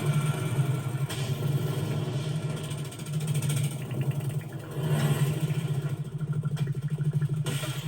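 Low, pulsing engine-like drone that swells and fades, the motorcycle-like buzz of the grasshoppers' wings in flight, with a few sharp hits near the end.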